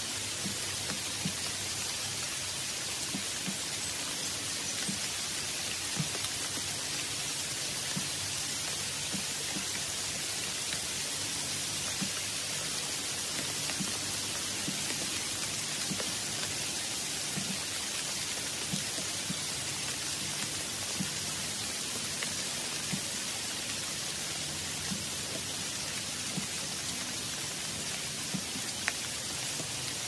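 Steady rain falling, an even hiss with scattered small drop ticks.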